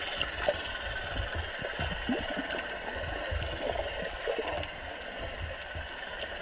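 Underwater ambience picked up by a camera below the surface: a muffled, irregular low rumble of water movement with soft knocks, over a faint steady hum.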